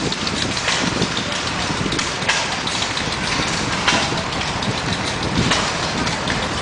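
Engines running steadily, with a sharp click about every second and a half.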